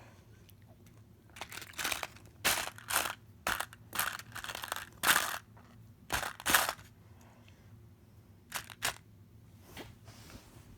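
A run of short crinkling, crunching handling noises, coming in quick bursts for several seconds, then a couple more near the end.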